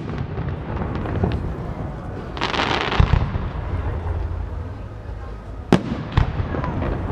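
Aerial fireworks shells bursting: a running low rumble of booms, a hiss lasting about a second around two and a half seconds in, and two sharp bangs half a second apart near the end.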